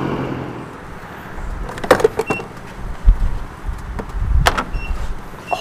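Motorcycle engine running down as the bike slows. Then clicks and knocks from handling a gas pump, with a few short beeps from the pump's keypad.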